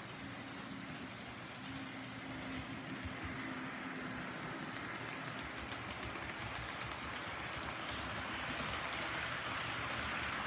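HO-scale model train rolling past on its track: a steady rushing clatter of small wheels on rail that grows louder as the wagons and coaches pass close by. A faint steady hum fades out a few seconds in.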